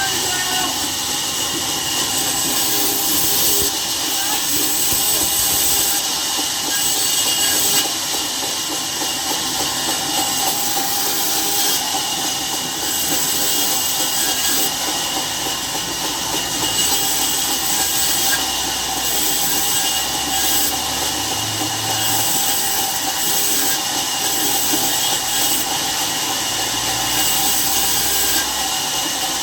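Steady machine noise with a strong hiss, running without a break.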